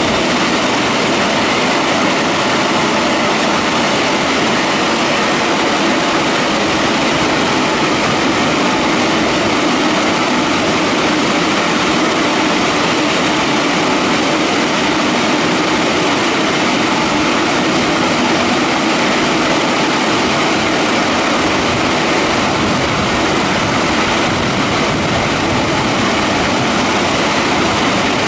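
WashTec EasyWash rollover car wash in its drying stage: the blower fans of the top dryer bar running with a steady, loud rush of air and a faint steady whine.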